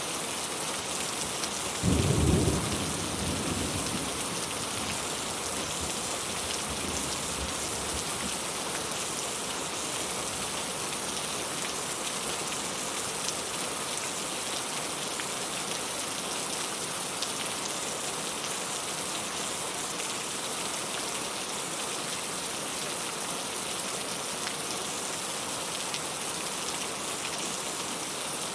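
Steady rain falling, with one short, loud low rumble of thunder about two seconds in that fades out over the next couple of seconds.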